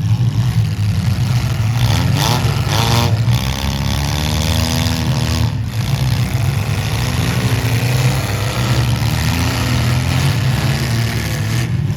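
Demolition derby cars' engines running loud in a steady rumble, revving up in rising sweeps about two to three seconds in and again later.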